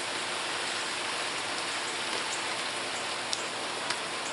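Steady rain falling, an even hiss, with a few faint clicks from gear being handled.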